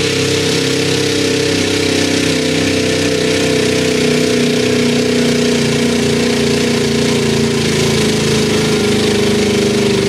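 Pulling truck's engine running hard and continuously under load as it drags the weight-transfer sled, a steady high-revving drone whose pitch eases down slightly near the end.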